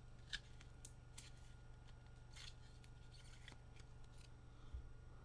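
Faint handling of trading cards: a scatter of soft clicks and short swishes as cards are slid and flipped, over a steady low electrical hum.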